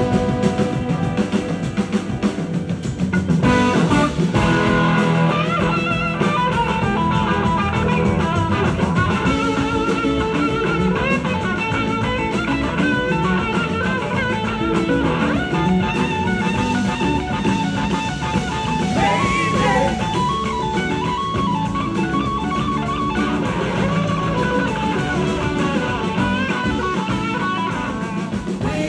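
Live rock band playing an instrumental passage: two electric guitars, one playing a bending melodic lead line, over a drum kit.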